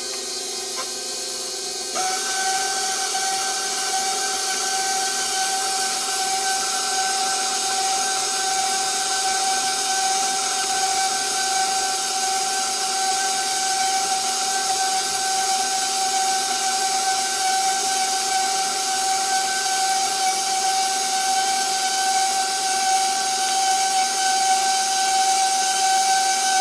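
KitchenAid tilt-head stand mixer's motor running, its flat beater working thick choux pastry dough in a steel bowl. About two seconds in, the steady whine jumps higher and louder and then holds.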